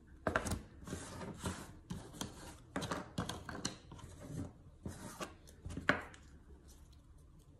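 Large two-piece children's puzzle pieces being handled, rubbed and fitted together: an irregular run of scraping and tapping that stops about six seconds in.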